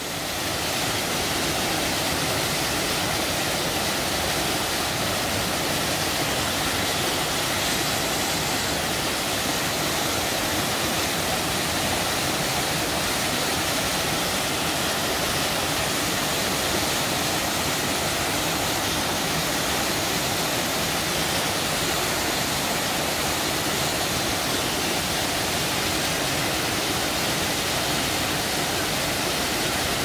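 Waterfall pouring down steep rock slabs into a plunge pool: a steady, dense rush of falling water that fades in over the first second and then holds even.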